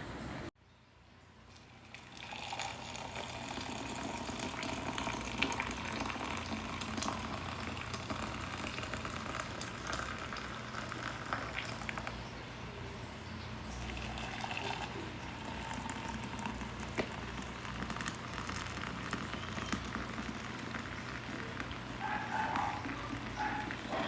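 Zojirushi electric kettle heating water: a hiss and rumble that builds over a few seconds, then holds steady with small scattered crackles as the water comes toward the boil.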